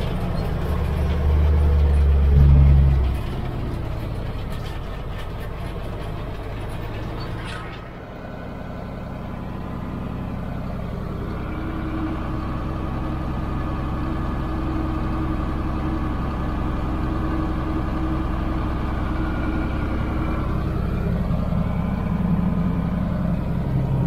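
Grain truck's engine running, louder for the first three seconds, dropping off around eight seconds, then running steadily.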